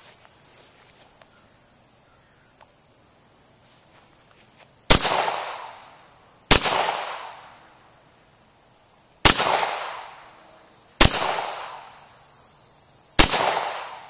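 Five single shots from an M-11 Cobray 9mm semi-automatic pistol, fired at an uneven pace starting about five seconds in. Each sharp crack trails off over about a second.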